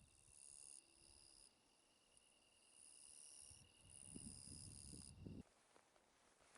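Faint insects chirring outdoors: a steady high trill with higher buzzing that comes and goes, and a brief low rumble about four seconds in.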